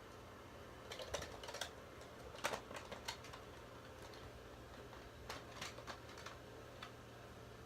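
Small, sharp clicks and taps of hard plastic parts being handled, in two scattered clusters over a faint steady hum.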